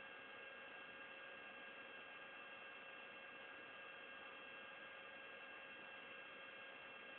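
Near silence: a faint, steady electrical hum over hiss.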